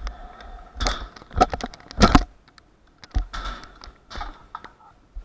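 Hard small wheels rolling on skate park concrete, with a run of sharp clacks and knocks from the deck and landings, the loudest about two seconds in and another just after three seconds.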